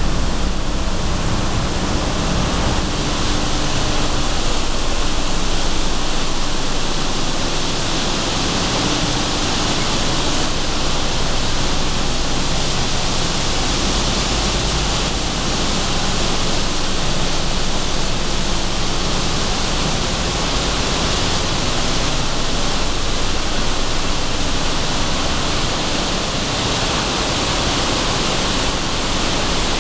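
Sunflower seed cleaning and dehulling machinery running together: a loud, steady rushing noise with a faint low hum underneath.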